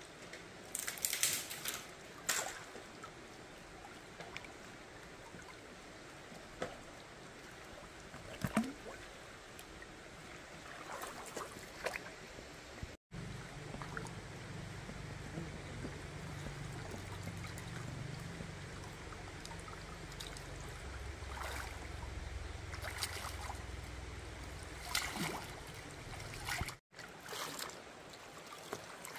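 Stream water trickling and flowing steadily, with a few sharp clicks and knocks. In the middle section, between two abrupt cuts, a low rumble lies under the water.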